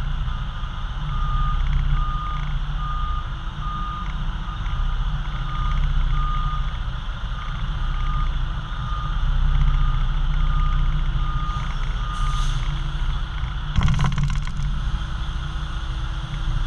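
Semi-trailer truck reversing: its reversing alarm beeps steadily, about one and a half beeps a second, over the low running of the truck's diesel engine. The beeping stops about twelve seconds in, and a short, sharp burst of noise follows near the end.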